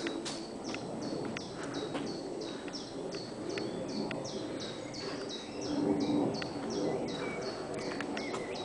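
Footsteps on pavement, heard as scattered sharp clicks, under a steady rapid high chirping of about three chirps a second, each dipping slightly in pitch, over a low background rumble.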